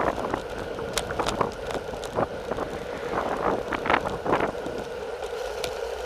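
Road bicycle descending at speed: a steady rush of wind and tyre noise with irregular clicks and rattles from the bike over the road surface.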